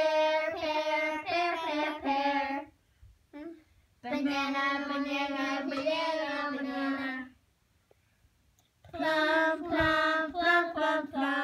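A child's voice singing three unaccompanied phrases, with short silent gaps between them.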